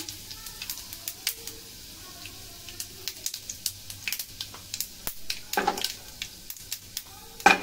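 Mustard seeds and urad dal frying in hot oil in a small nonstick pan for a tempering: a steady sizzle with many scattered sharp crackles as the seeds splutter. Two louder knocks stand out, one a little past halfway and a louder one near the end.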